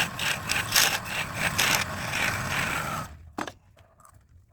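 A hand tool is worked back and forth on wood in quick rasping strokes, like sawing or filing. The strokes stop about three seconds in, followed by one sharp crack.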